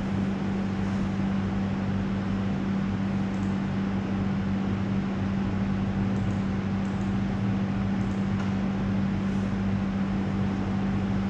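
Steady room hum: an air conditioner's fan rushing evenly, with a constant low drone underneath.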